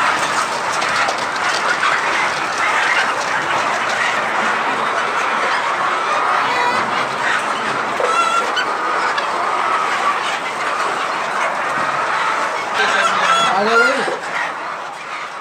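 Large flock of laying hens clucking and cackling together in a dense, steady din, with a few louder rising calls near the end.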